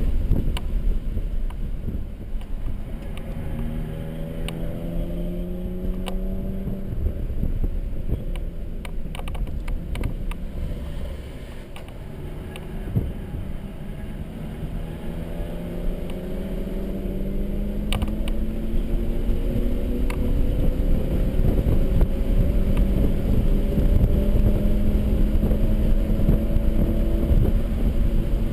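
Mercedes-Benz C300 4MATIC engine being driven hard on track over heavy road and wind noise. Its pitch climbs for a few seconds and then drops away as the throttle eases, and from about halfway it climbs again in one long pull to the end.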